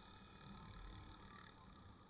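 Near silence: a faint, muffled low rumble of a motorbike being ridden, with a faint steady high hum over it.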